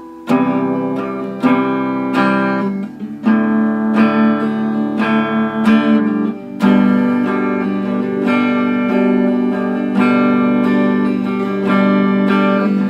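Acoustic guitar strumming chords in an instrumental break, with a stroke about every second and the chords ringing on between strokes.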